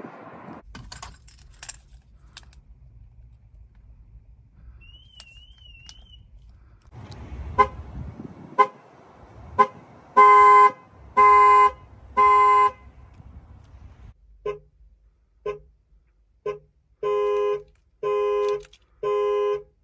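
Car alarm sounding through the car's horn: evenly spaced honks about one a second, first short toots and then longer, louder blasts, the pattern repeating. A faint warbling electronic siren is heard briefly before the honking starts.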